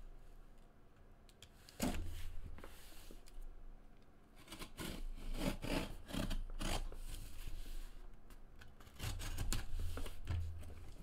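Cardboard case being cut open: a blade scraping and slitting along the packing tape in a run of short strokes, with a knock of the box about two seconds in. The cardboard box is shifted and rubbed against the table near the end.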